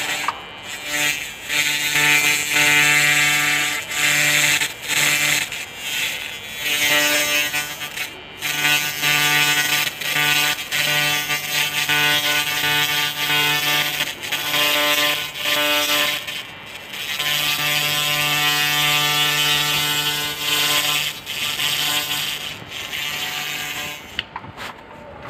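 Handheld laser rust-cleaning head firing on rusty steel tube: a loud buzzing hum with a hissing crackle, switched on and off in stretches of one to four seconds, stopping about a second before the end.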